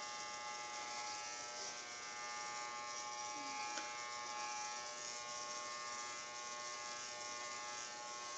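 Electric hair clippers running with a steady, even buzz while cutting a boy's short hair.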